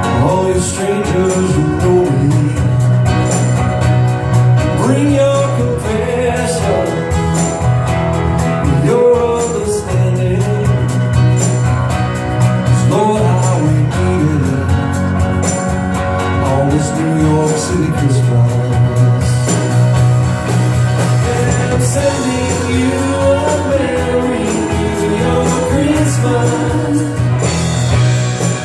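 Live band playing an upbeat Christmas song, with a steady bass line, a regular drum beat and a wavering melody line.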